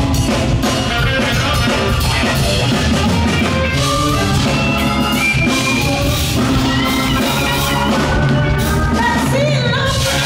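Live rock band playing: electric guitar over a drum kit, with held, bending melodic lines.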